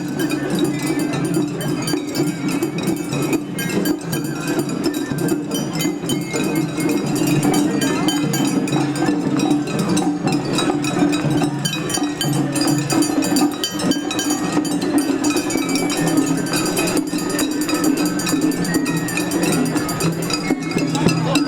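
Japanese summer festival din: a dense, continuous patter of metallic clinks and strikes over a steady hum.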